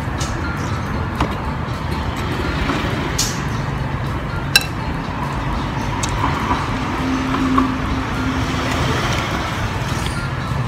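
A spoon clinking against a noodle bowl a few times, the loudest and briefly ringing clink about four and a half seconds in, over a steady low rumble.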